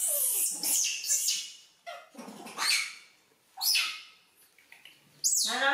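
Young macaques giving short, high-pitched squeals, about five separate calls spaced roughly a second apart.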